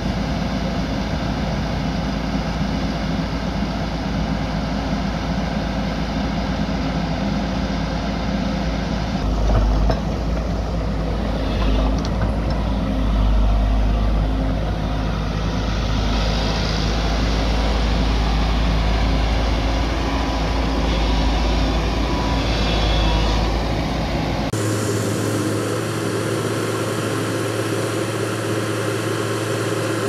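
Diesel engine of a JCB crawler excavator running steadily. The sound changes abruptly near the end.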